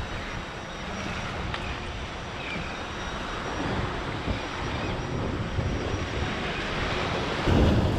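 Wind buffeting the microphone over the wash of surf, with a faint high steady whine; it grows louder near the end.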